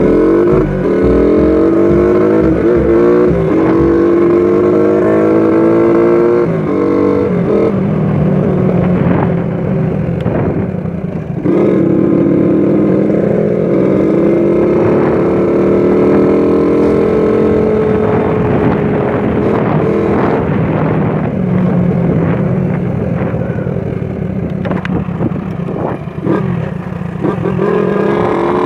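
Single-cylinder four-stroke engine of a souped-up 1996 Honda Titan 125 motorcycle under way. Its pitch climbs as it accelerates, drops, and climbs again several times as the rider works through the gears.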